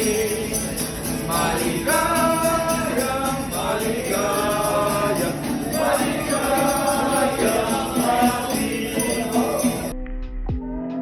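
Background music: a sung melody over a steady jingling percussion rhythm. About ten seconds in it cuts abruptly to a sparser, quieter track.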